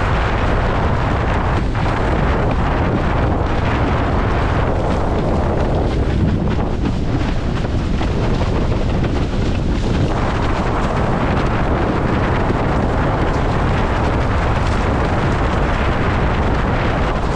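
Loud, steady wind buffeting on a GoPro Hero 10's microphone, mixed with water rushing and spraying under a Starboard iSonic 77 slalom windsurf board planing at speed. For a few seconds in the middle the hiss turns duller.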